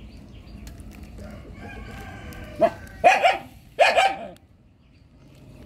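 A rooster crowing in the background, then a dog barking loudly about three times around the middle.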